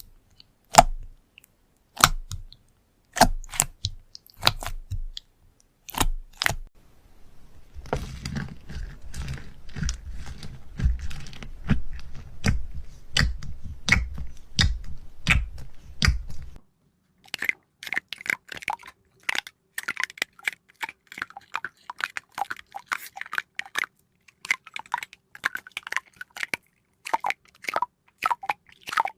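Crisp clicks and crunches, the kind heard in ASMR-style sensory clips, in three stretches. There are scattered single clicks at first, then about eight seconds of dense crunching over a low rumble, then a fast run of crackling clicks.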